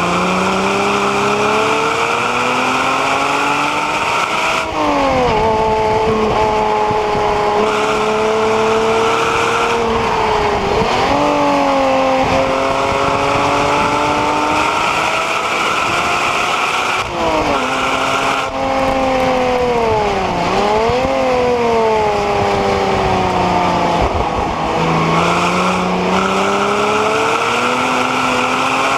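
Porsche Cayman 987 2.9-litre flat-six engine running hard on track. The revs climb and drop sharply as the car shifts up about five, eleven and seventeen seconds in, fall and swing back near twenty seconds, then climb again near the end.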